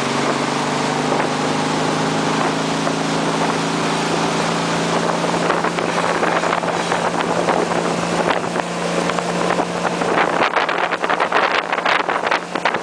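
Motorboat engine running steadily at speed, a constant hum over the rush of water from the wake. Wind buffets the microphone in the last few seconds.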